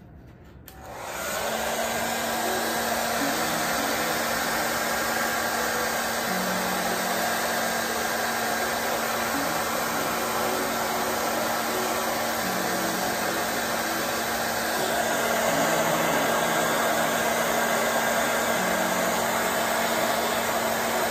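Handheld hair dryer switched on about a second in, then blowing steadily on gelled hair, a little louder for the last third.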